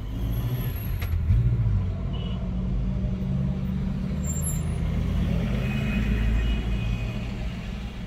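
Road traffic in slow, congested city traffic: a steady low rumble of vehicle engines idling and creeping, heard from inside a car. There is a short click about a second in.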